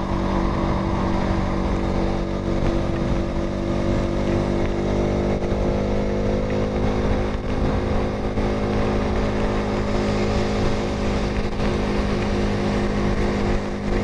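Bajaj Pulsar RS200 single-cylinder engine running steadily while the motorcycle cruises, its pitch rising slightly in the first half, under wind and road noise.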